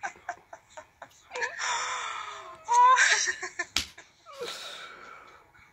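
A woman's breathy laughter, peaking about three seconds in with a rising, rapidly pulsed squeal. A sharp click sounds just after the peak, and a few light clicks come in the first second.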